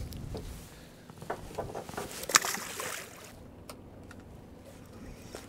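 Knocks and clicks of a landed pollack and fishing tackle being handled aboard a small boat, loudest with one sharp click about two and a half seconds in, over a low wash of water and wind.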